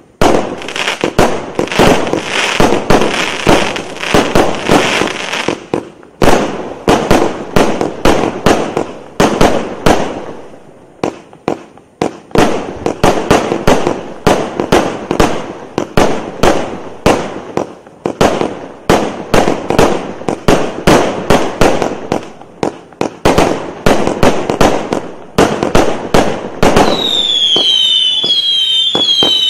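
A 100-shot fireworks cake firing in rapid volleys of sharp shots and crackling bursts, with short lulls about 6 and 11 seconds in. Near the end the shots stop and a string of short falling whistles repeats about twice a second.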